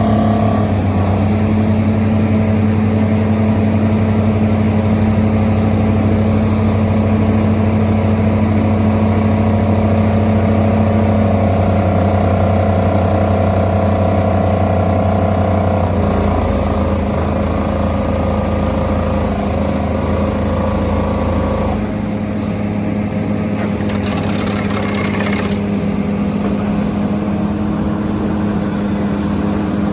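Hitachi Zaxis 490 LCH excavator working sheet piles: its diesel engine and hydraulics run as a loud, steady drone. The note shifts about sixteen seconds in, the deep drone drops away about twenty-two seconds in, and a brief hiss follows a couple of seconds later.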